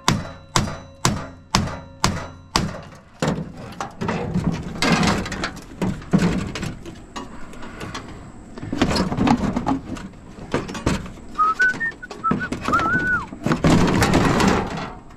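A hammer striking the metal of an air-conditioning unit: about six ringing blows, two a second, which stop about three seconds in. Irregular metal clanking and scraping follow as parts are worked loose, with a brief gliding whistle a little past the middle.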